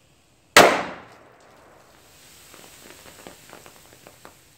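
A lump of sodium metal, about 7 grams, exploding in a bowl of water: one sharp, loud bang about half a second in, as hydrogen from the runaway reaction blows the water apart. Then a hiss with scattered pops and crackles as the thrown sodium burns.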